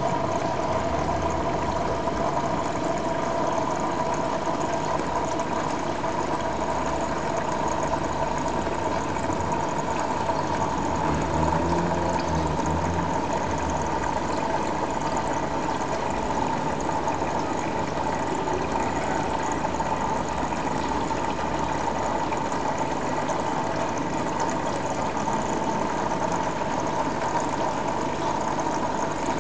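Steady mechanical hum with two steady high tones running through it. Near the middle a brief low sound rises and falls.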